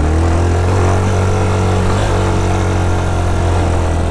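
Yamaha Fazer 250's single-cylinder four-stroke engine running under a steady throttle while ridden, heard from the rider's seat. Its pitch rises slightly in the first second, then holds steady.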